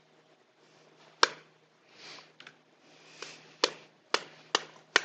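A large heavy spoon smacking the skin of a halved pomegranate held over a stainless steel bowl, knocking the seeds out. There are about six sharp knocks: one about a second in, then a quicker, even run of about two or three a second in the second half.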